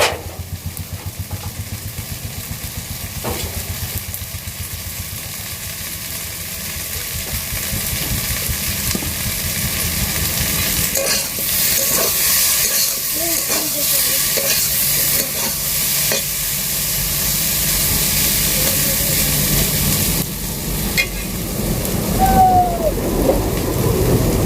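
Food sizzling in hot oil in a pan while it is stirred, with scattered scrapes and clicks of the spoon against the pan. The sizzle grows louder about ten seconds in. A rapid low throb is heard in the first few seconds.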